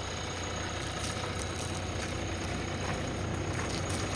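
JCB 3DX Plus backhoe loader's diesel engine idling steadily, a constant low hum.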